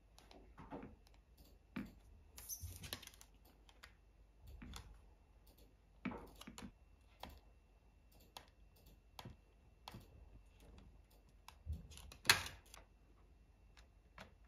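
Faint, irregular clicks, taps and rustles of a tempered-glass screen protector being handled on a phone: fingernails tapping the glass and its backing sheets being peeled off, with the sharpest click near the end.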